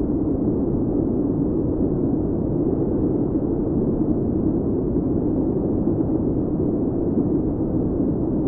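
Steady, even rumbling noise with no separate blasts or bangs.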